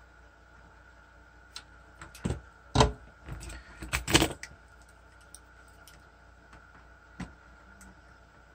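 Irregular sharp clicks and knocks of tools and parts being handled on a workbench during circuit-board repair, loudest about three to four seconds in, over a faint steady high-pitched hum.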